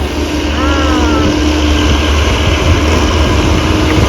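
Heavy diesel engine of rice-harvesting farm machinery running steadily with a deep, even rumble and a steady hum.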